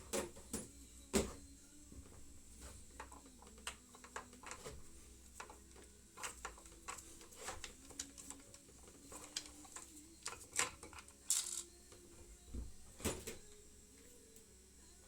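Irregular metallic clicks, clinks and light knocks of hand tools and small metal parts being handled during engine work, with the loudest knock about a second in.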